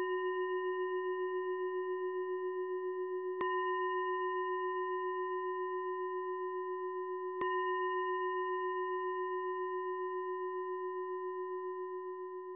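A singing bowl ringing, struck again about three and a half seconds in and once more about seven and a half seconds in, each strike ringing on in a low wavering tone with higher overtones. The ringing fades toward the end. The bowl is rung to close the session.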